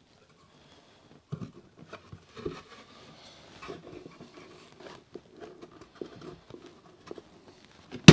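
Plywood pieces handled and lined up on a wooden tabletop: scattered light knocks, taps and scrapes. One sharp, loud crack right at the end.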